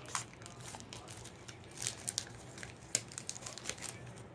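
Foil wrapper of a Pokémon card booster pack crinkling and tearing as it is opened by hand: a run of irregular crackles.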